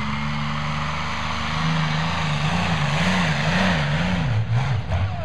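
Modified pulling tractor's engine at full throttle, pulling the weight sled down the track. It grows louder about a third of the way in, and its pitch wavers up and down.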